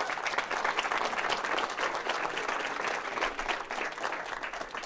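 Audience applauding, many hands clapping; the clapping thins out near the end.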